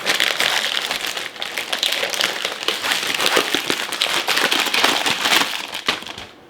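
Plastic packaging crinkling and rustling as it is handled, a steady run of small crackles that dies away near the end.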